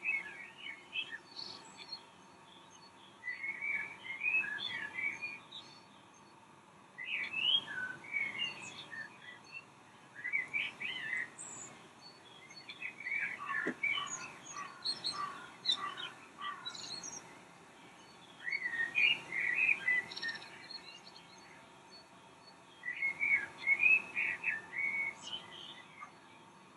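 Birdsong: repeated bouts of quick chirping and warbling notes, each lasting a second or a few, separated by short pauses.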